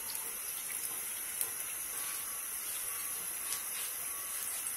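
Oil heating in a nonstick frying pan, a steady faint hiss with a few tiny pops.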